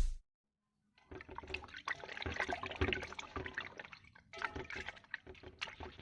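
Water splashing and dripping in a run of small irregular sounds, with a brief pause about four seconds in.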